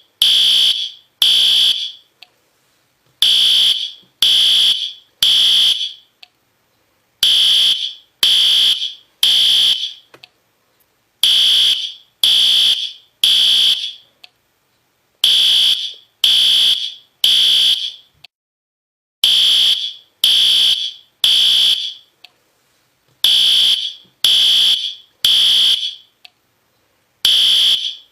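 System Sensor P2R fire alarm horn sounding the temporal-three evacuation pattern: three loud, high-pitched horn blasts, then a pause, repeating about every four seconds.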